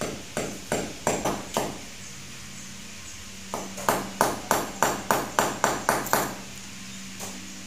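Claw hammer driving a nail into a wall: several taps in the first second and a half, then after a pause a quicker run of about eleven harder blows, roughly four a second, each with a short ring.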